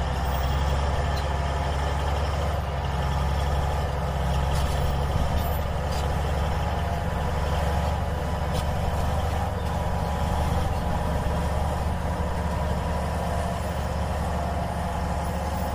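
A heavy engine running steadily at idle, a low even hum that neither rises nor falls.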